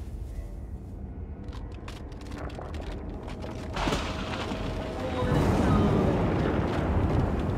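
Animated film soundtrack played over a video call: dramatic music over a deep rumble, with a sudden crashing boom about four seconds in that swells into a louder rumble, as ice breaks apart on screen.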